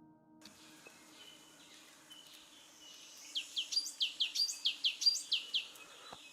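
A wild songbird singing a rapid run of about a dozen short, high, descending notes over about two seconds, after a few softer calls, against faint outdoor background noise. Ambient music fades out about half a second in.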